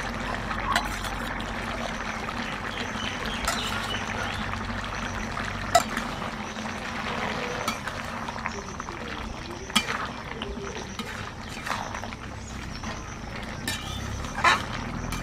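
Metal spatula stirring a wet vegetable curry in a cooking pan, with a sharp clink against the pan every two seconds or so over a steady liquid hiss of the simmering pot.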